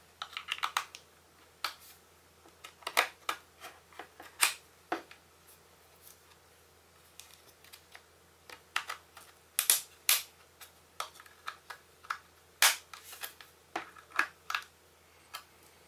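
A thin metal pry tool working along the seam of an iPod classic's metal case, making irregular sharp clicks as the case's retaining clips are pried loose. The loudest snaps come a little past the middle.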